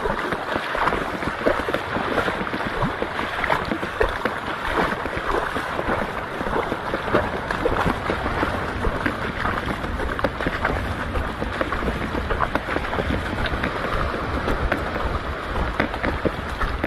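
Water sloshing and splashing in a steady stream of small irregular splashes, with wind on the microphone.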